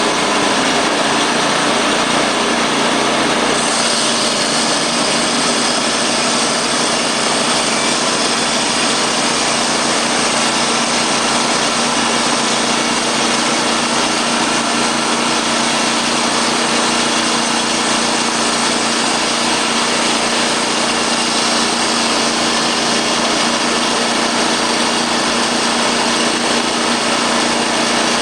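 Timberking B-20 portable band sawmill running, its 27 hp Kohler gasoline engine driving the band blade at a steady level. A brighter high hiss joins about three and a half seconds in and holds.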